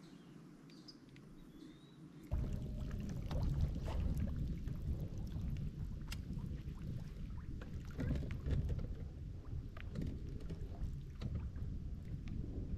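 Wind buffeting the microphone on an open bass-boat deck, with water lapping at the hull and scattered short ticks and knocks; it starts abruptly about two seconds in, after a quiet stretch with a few faint bird chirps.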